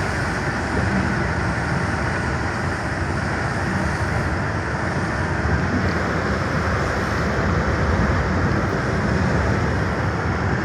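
Truck engine and road noise, a steady drone with no change.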